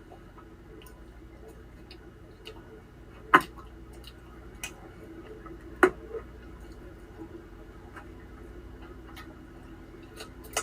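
Quiet room hum with faint, scattered ticks and two sharp clicks, one about three and a half seconds in and one about six seconds in.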